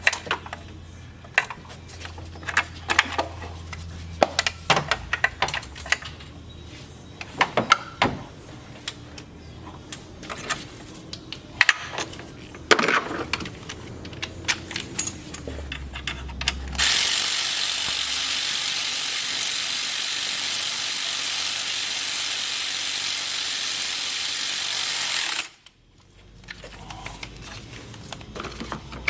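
Scattered metallic clicks and clinks of tools and small parts being handled at uneven intervals. Then a steady, loud hiss sets in for about eight seconds and cuts off suddenly.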